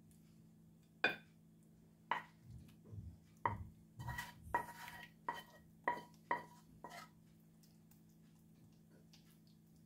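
A wooden spoon scraping and knocking a pan as a creamy sausage mixture is tipped out into a glass baking dish: about nine sharp clinks, each with a short ring, spread over about six seconds. Soft, wet thuds come in the middle as the food drops into the dish.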